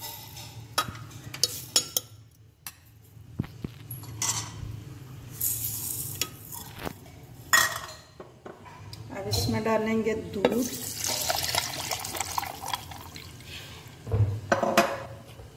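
A metal spoon clicking against a glass blender jar as sugar is tipped in over ice, then milk pouring into the jar onto the ice and sugar.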